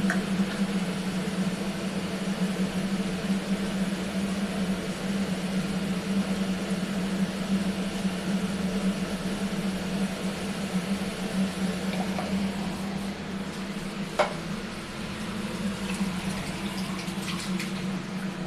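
Onion and spice paste frying in a pan, a steady sizzle under a constant low hum, with a sharp knock about fourteen seconds in.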